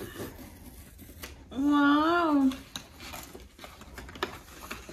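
Cardboard box being opened by hand: faint scraping and tearing of the seal with a few small clicks. About a second and a half in, a woman's drawn-out wordless hum, rising then falling in pitch, is the loudest sound.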